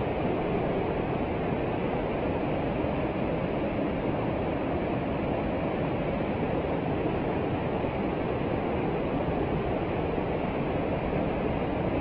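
Mountain stream cascading over boulders: a steady rush of white water, its loudness unchanging throughout.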